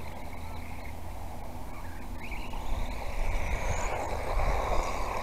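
Wind rumbling and buffeting on the microphone, gustier in the second half, with the faint high whine of a 1/18-scale electric RC car's motor rising and falling.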